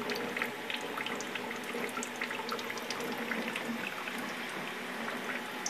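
A thin stream of cooling water from a distilling still's condenser hose trickling into a stainless steel sink, steady, with scattered small ticks and pops.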